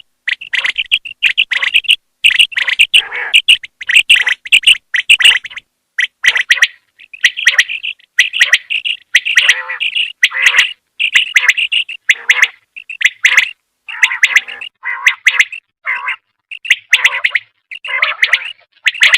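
Female common quail (batair) calling: rapid runs of short, high chirping notes in clusters about a second long, separated by brief pauses. This is the hen's call used as a lure to draw male quail in hunting.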